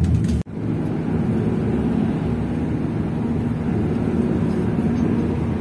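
Steady engine and road noise of a Hino RK coach, heard from inside the passenger cabin while it drives at speed, with a low hum. The sound drops out for an instant about half a second in.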